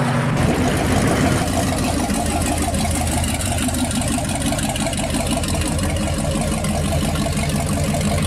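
Engine of a custom Morris Minor convertible hot rod running at low speed as the car rolls slowly by, its exhaust pulsing steadily.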